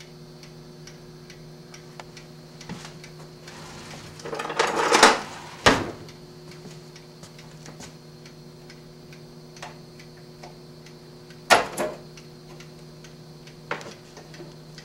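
Battery charger's mechanical timer ticking steadily. Hands work the selector switch out of its spring-loaded twist-lock mount in the sheet-metal cabinet: a scraping rattle about four to five seconds in, ending in a sharp snap as it pops free, then a couple of single knocks later on.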